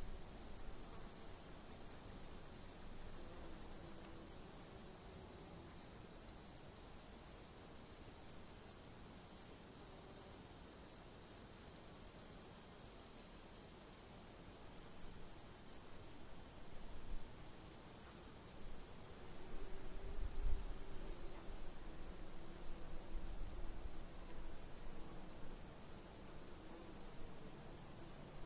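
Night insect chorus: crickets chirping in an even rhythm, about two to three chirps a second, over a steady high-pitched insect trill. There is a brief low rumble about two-thirds of the way through.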